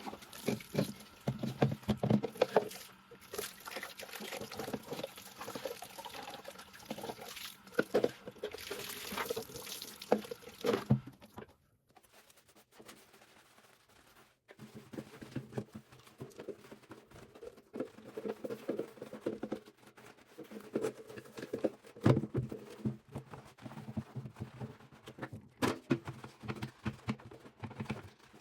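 Vacuum cleaner parts being washed: water pouring and dripping, with irregular knocks and clatter of plastic parts being handled. There is a quieter pause a little before the middle.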